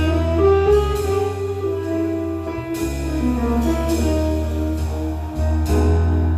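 Small jazz band playing together: a tenor saxophone carries a melody in long held notes over piano, low sustained bass notes and drums with cymbal washes.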